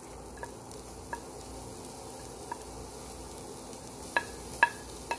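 Rice frying in a pan with a steady sizzle. Light ticks of a wooden utensil scraping diced carrots off a plate into the pan, with a few sharper clicks about four seconds in.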